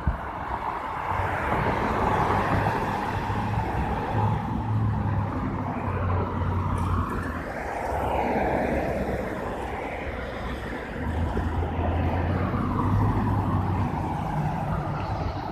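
Road traffic driving past close by: several cars and a pickup truck go by one after another, their tyre and engine noise swelling and fading in turn over a low engine hum.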